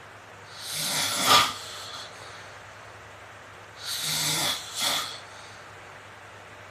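A man snoring extremely loudly: two heavy snores about three seconds apart, each building to a sharp peak, with the next one starting at the very end.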